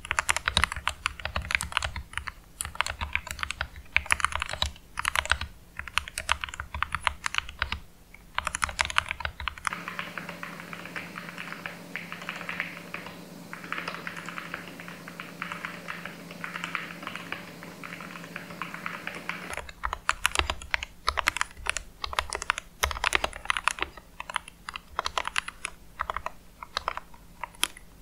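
Fast typing on a GK61 mechanical keyboard with lubed Gateron optical red linear switches: a dense, uneven clatter of keystrokes. From about ten seconds in to about twenty seconds the keystrokes sound thinner and lighter in the low end, over a steady hiss and hum of raw microphone static, before returning to the fuller, deeper sound.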